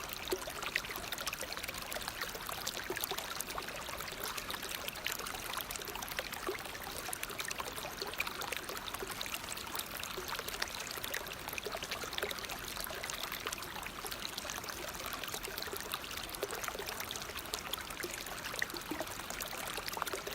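Waterfall water falling and splashing in a steady, unbroken hiss, full of fine splashes, with little low rumble.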